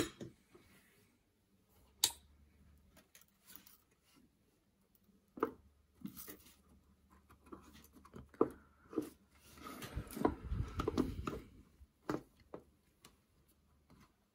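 Hands handling the wiring on a Strat pickguard: scattered small clicks and taps, then a stretch of rustling and handling noise about ten seconds in as the wires around the blade switch and volume pot are pushed into place.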